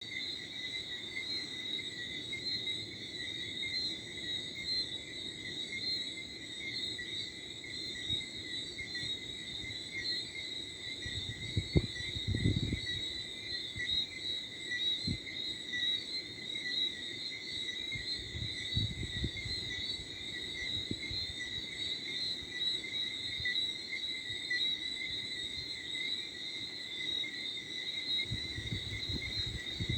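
Night chorus of crickets and frogs: a steady, unbroken high-pitched trilling. Light wind rumbles on the microphone a few times, and there is one sharp click about twelve seconds in.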